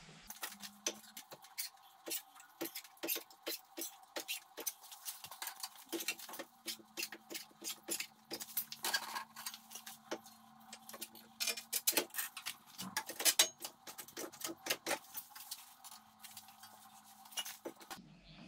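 Thin sheet-steel patch panel being bent and handled by hand: many irregular small metallic clicks, ticks and clanks as the sheet flexes and knocks, over a faint steady hum.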